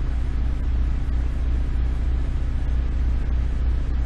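Steady low hum with a faint hiss over it, unchanging and without any distinct events.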